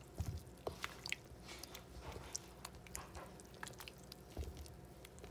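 Wooden spoon stirring thick, lumpy baghrir batter of semolina, flour and water in a metal bowl: faint wet squelching with light scattered clicks and a couple of soft thumps.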